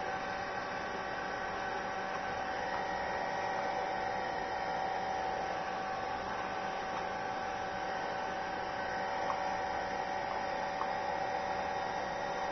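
Hair dryer running steadily, a constant hum with a whine over it.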